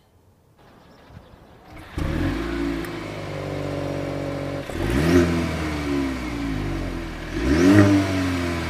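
Mercedes-Benz GLC 300L's turbocharged four-cylinder petrol engine starting up about two seconds in and idling, then revved twice, each rev rising and falling back to idle.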